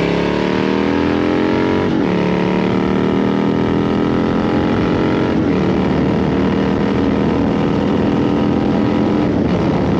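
Harley-Davidson Fat Bob FXDF V-twin accelerating hard through the gears: the engine note climbs, drops sharply at an upshift about two seconds in and again around five and a half seconds, then holds fairly steady before another change near the end.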